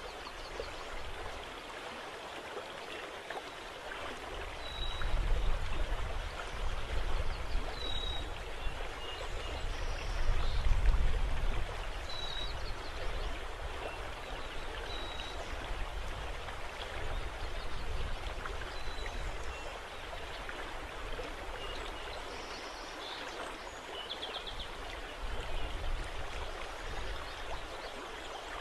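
Steady outdoor wash of wind and rippling river water, with low wind rumbles on the microphone that swell about five and ten seconds in. Faint short high chirps come and go throughout.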